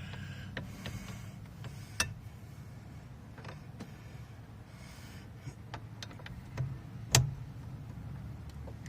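Scattered metal clicks and knocks of a half-inch breaker bar and 21 mm socket being fitted onto a steering wheel nut, with the sharpest knock about seven seconds in, over a steady low hum.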